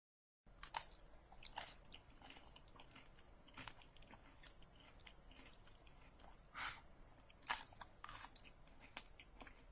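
Close chewing of a crisp stir-fry of lotus root slices and snow peas: faint, irregular crunches, a few of them louder.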